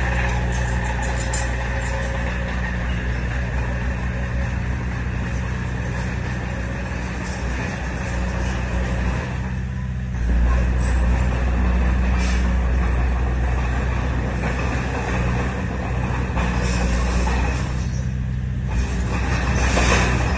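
Heavy diesel engine of earthmoving machinery running steadily with a low drone that gets louder about halfway through, with a few short hissing noises in the second half.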